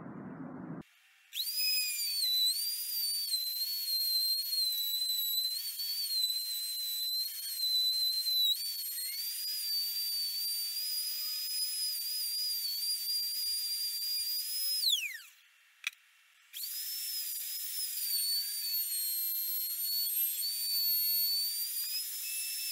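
Handheld plunge router cutting pockets into a thick wooden plank along a template: a high-pitched motor whine whose pitch dips as the bit bites into the wood. About fifteen seconds in it is switched off and winds down with a falling whine, then is started again a second or so later.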